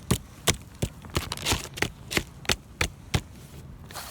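A rock hammering a wooden stake into the ground: about ten sharp, evenly spaced strikes, roughly three a second, that stop about three seconds in.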